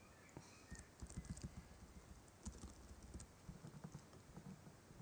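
Faint computer keyboard typing: a scattering of soft, irregular key clicks as code is entered.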